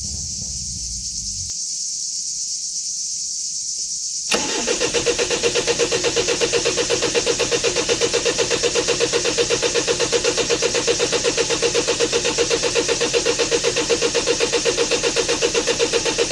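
Starter cranking an old camper van's diesel engine, starting suddenly about four seconds in, with an even beat of about six or seven compression pulses a second. The engine does not catch: it is long unused and the diesel fuel is not coming up.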